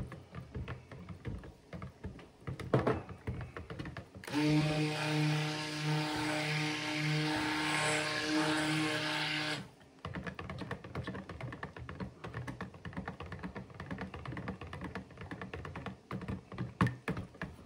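Cuisinart Smart Stick immersion blender running steadily for about five seconds, blending cold-process soap batter toward a light trace. Before and after it, the blender's head clicks and taps against the plastic pitcher as it is stirred through the batter by hand with the motor off.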